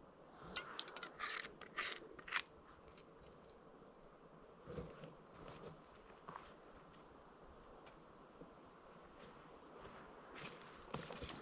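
A bird repeats a short, high call about once a second, faint against quiet bush. A few light rustles and clicks sound in the first couple of seconds.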